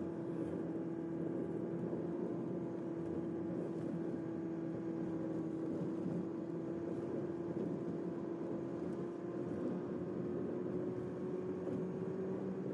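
Car engine running steadily with a constant droning hum, one held tone over a low rumble.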